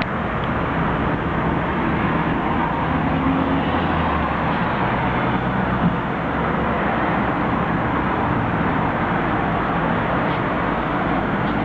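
Steady, even background noise with a low rumble, and a single brief knock about six seconds in.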